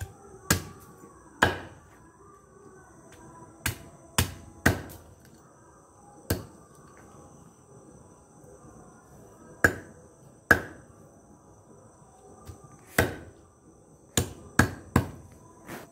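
A large knife chopping a whole chicken into pieces on a banana leaf laid on a concrete floor: about a dozen sharp chops at irregular intervals, three or four coming in quick succession near the end. Crickets chirr steadily and high underneath.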